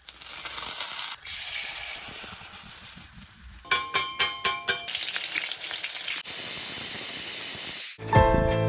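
Kitchen sounds from cake-making, cut abruptly from one clip to the next: a hiss and a stirring, scraping noise, a quick run of about six metallic taps with ringing tones near the middle, then a steady bright hiss near the end.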